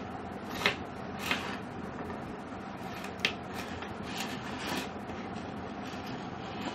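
Hands rubbing and handling a coil of bare copper wire, with a few sharp clicks and scrapes from the wire turns, three of them louder, over a steady background hum.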